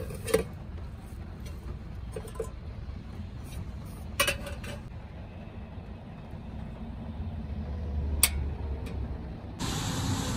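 A few light clinks and clicks from a kettle and pot being handled on a portable butane camping stove, over a steady low rumble of road traffic. Near the end a louder, steady rushing noise takes over.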